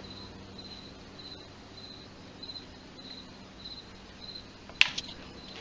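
Cricket chirping steadily in short, high chirps about every half second, over a low electrical hum. A sharp click comes near the end.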